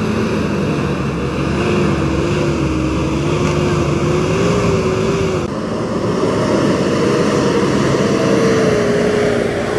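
A car engine running hard at high revs, its pitch wavering and slowly climbing, with a loud rushing noise over it, typical of a car straining up a slippery muddy slope.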